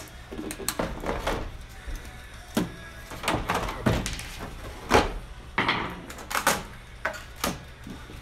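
The plastic back cover of a Vizio E43U-D2 TV being pried and pulled away from the frame: a run of irregular clicks, knocks and creaks as its plastic clips let go.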